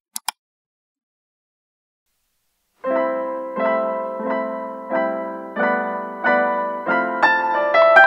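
Two quick clicks of a mouse-click sound effect, then silence, then electric-piano background music begins about three seconds in, with chords struck in a steady rhythm.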